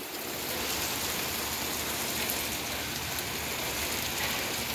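Rain falling steadily in a thunderstorm, an even hiss.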